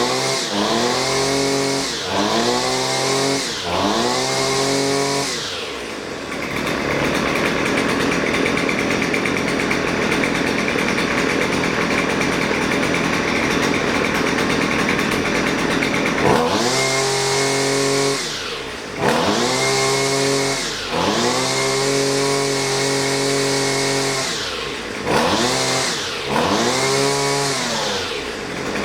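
Husqvarna 128LD string trimmer's small two-stroke engine being test-run after a carburetor mixture adjustment. It revs up and drops back several times, holds at high revs for about ten seconds, then revs up and down again in repeated blips.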